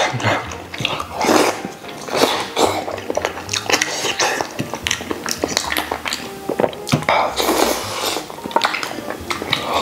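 Eating braised pig tail: repeated sucking and wet chewing and smacking, with small clicks of chopsticks against a ceramic bowl.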